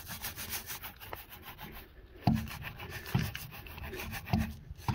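Biltema wheel brush scrubbing a dirty aluminium alloy wheel wet with wheel cleaner: a fast, scratchy rubbing, with a few knocks along the way.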